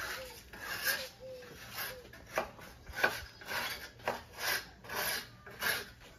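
Rhythmic scraping, about two rasping strokes a second.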